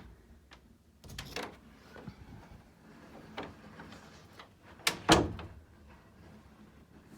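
Interior wooden door being handled against its frame: a few light knocks, then a sharp double knock about five seconds in.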